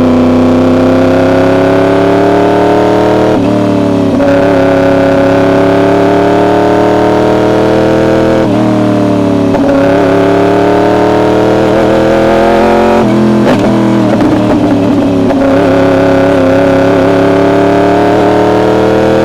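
Yamaha R1's inline-four engine through an SC Project exhaust, running hard at high revs under acceleration. Its pitch climbs slowly for several seconds at a time, broken by brief changes about three times.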